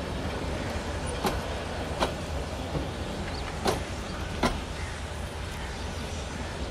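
Bangladesh Railway intercity passenger coaches rolling past close by: a steady low rumble with sharp wheel clacks, two pairs of clacks each about three-quarters of a second apart.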